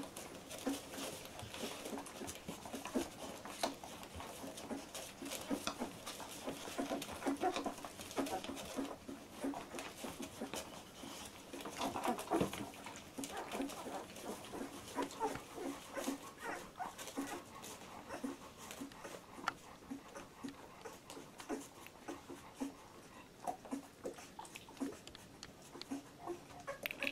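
Two-week-old Labrador retriever puppies whimpering and squeaking in many short, irregular cries while they nurse.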